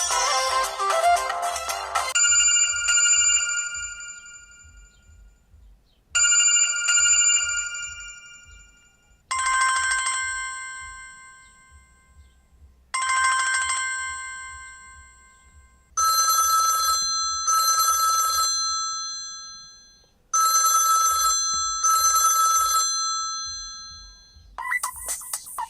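Samsung Galaxy Y (GT-S5360) ringtones played one after another. A melodic tune ends about two seconds in. Three different short bell-like ringing tones follow, each sounding twice and fading out, and another tune starts near the end.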